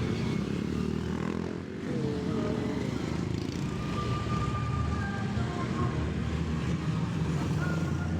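Steady engine and road rumble of a moving vehicle, with a brief dip in loudness under two seconds in.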